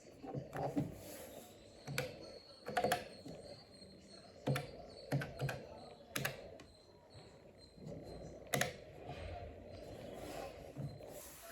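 Typewriter-style mechanical keys of a retro calculator being pressed, giving sharp clacks one at a time or in short runs of two or three, at an uneven pace with pauses between.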